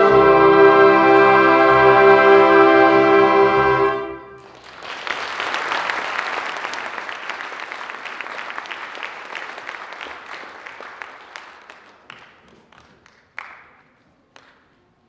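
A choir and band hold a final chord, which cuts off about four seconds in. The audience then applauds, and the clapping fades away over several seconds to a few last claps.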